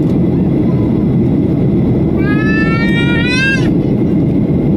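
Steady low rumble of airliner cabin noise, engines and airflow, during the climb after takeoff. About two seconds in, a short high-pitched cry rises in pitch for about a second and a half.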